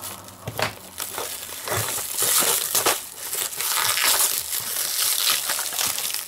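Cling film crinkling and crackling as hands handle a wrapped clear plastic parts box and pull the wrap loose, with a few sharp clicks. It is irregular and gets denser about two seconds in.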